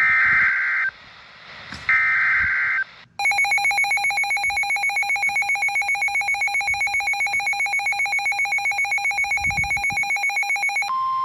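Two short bursts of EAS/SAME digital data tones, then a buzzy electronic alert tone pulsing rapidly, about eight times a second. Near the end it switches to a steady single tone, the NOAA Weather Radio warning alarm tone that comes before a voice warning.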